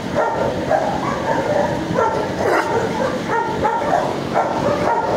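Dogs in neighbouring shelter kennels barking and yipping, several at once, the short barks overlapping in a continuous chorus.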